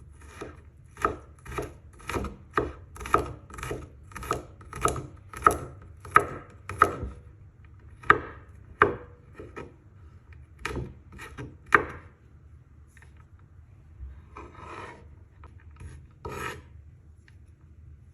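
Knife chopping on a cutting board: steady cuts about two a second for several seconds, then slower, scattered cuts.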